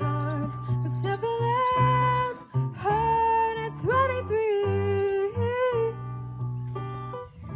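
A woman singing solo into a microphone, accompanied by a keyboard playing held chords.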